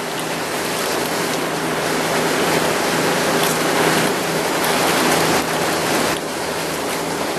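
Steady rush of wind and water on a motorboat underway, with a faint low engine hum beneath; the rush eases slightly about six seconds in.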